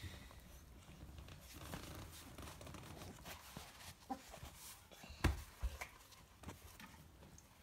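Groenendael puppies moving about on a hard floor: faint scuffling and small knocks, with one louder thump about five seconds in.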